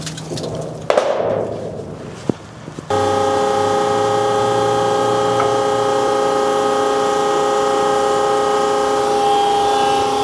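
A few knocks and a sharp click, then about three seconds in the tensile test bed's hydraulic pump starts abruptly and runs with a steady whine of several held tones as the wire rope is pulled under load.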